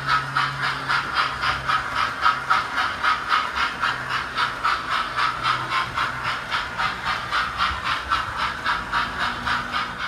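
Model steam locomotive's chuffing sound: an even rhythm of about four to five hissing exhaust beats a second, with a low steady hum underneath for the first half.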